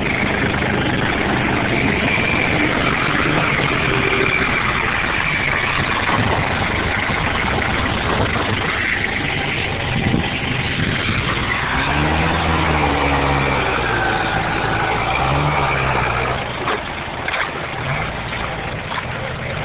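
Compact farm tractor engine running steadily, with the engine revving up and back down about two-thirds of the way through.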